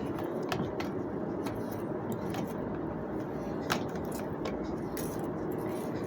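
Scattered light metallic clicks and clinks from the HVAC water strainer's parts being handled and fitted back, over a steady background noise.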